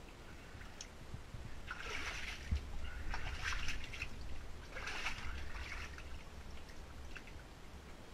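Shallow floodwater splashing and sloshing as someone moves through it, in three splashes about a second and a half apart, over a low rumble.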